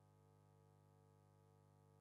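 Near silence with a faint, unchanging hum made of several steady tones.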